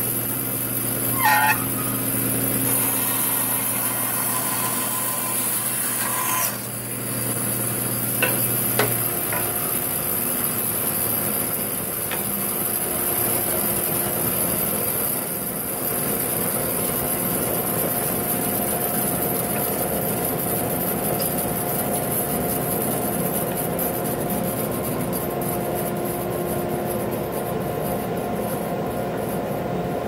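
Bandsaw running without cutting, a steady motor and blade hum. A wood blank and a brass pen tube are rubbed and knocked on its metal table a few times in the first nine seconds.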